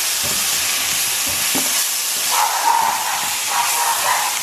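Rice and canned corn kernels sizzling in a hot pot while a spatula stirs them. The spatula scrapes the pot, with two brief, brighter scraping sounds between about two and four seconds in.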